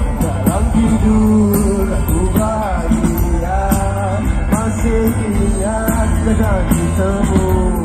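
Live rock band playing through a stage sound system, heard from within the audience: guitars and bass over a steady drum beat, with a melody line that slides up and down in pitch.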